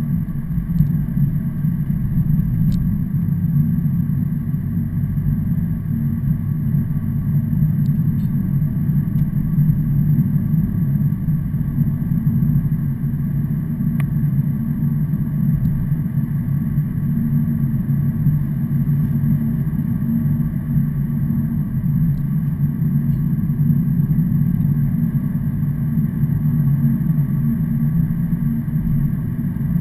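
A vehicle engine running at a steady speed: a constant low drone that neither rises nor falls, with no single vehicle passing by.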